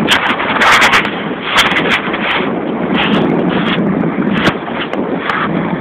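Wind buffeting the microphone over water splashing beside a pedal boat, with many sharp crackles scattered through.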